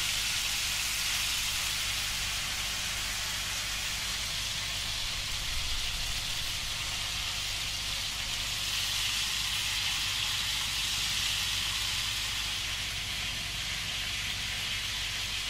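Chicken pieces frying in olive oil in a large frying pan: a steady sizzle while they brown, with a low steady hum underneath.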